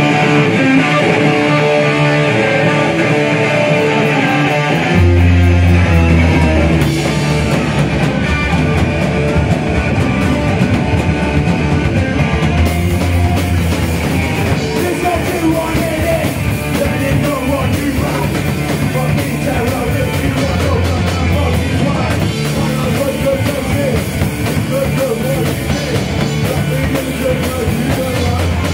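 Live punk/hardcore band playing loud: electric guitar alone at first, then the bass and drum kit crash in about five seconds in and the full band drives on, with a singer shouting over it.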